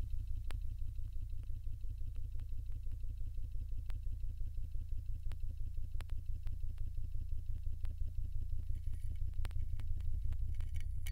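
Pressure pump running to pressurise the test chamber around a GoPro housing, a low rumble pulsing several strokes a second, with occasional sharp ticks. The pressure is climbing past 5,000 psi.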